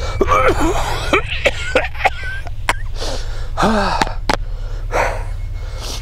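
A man with a bad cold or flu coughing in several harsh fits, with gasping breaths between them, over a steady low rumble.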